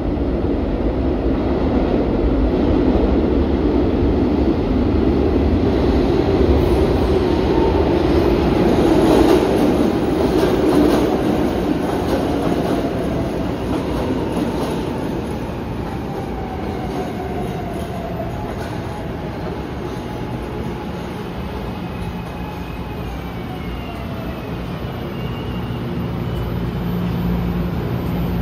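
SEPTA Market-Frankford Line subway train running into an underground station. The rumble of wheels on rail is loudest for the first ten seconds or so, then eases as the train slows, with a motor whine falling in pitch. A steady low hum is left near the end as it comes to a stop.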